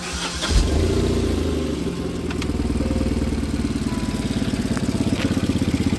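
Tata Nano's two-cylinder petrol engine starting, catching about half a second in, then idling with an even, rapid pulsing beat from the exhaust.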